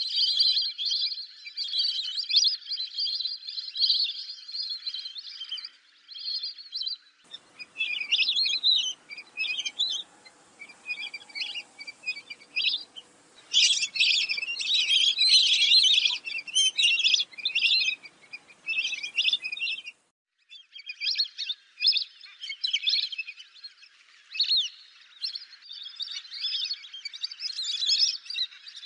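Lesser whistling ducks calling: a dense run of high, whistled chirps from several birds, overlapping and repeated, with a brief break about 20 seconds in.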